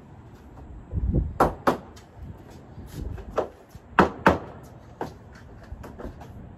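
Plastic shelving unit being assembled: sharp knocks as its parts are fitted together, in two pairs, about a second and a half in and about four seconds in, with a low thud just before the first pair and a few lighter taps between.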